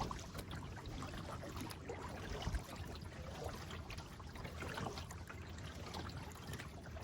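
Water trickling and lapping gently around a kayak, with faint scattered drips and splashes.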